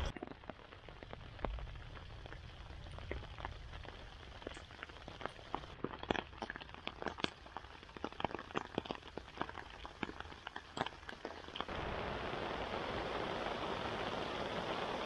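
Rain heard from under a fabric tarp: scattered single drops tap on the tarp overhead, then about twelve seconds in the sound changes to a steady hiss of rain falling.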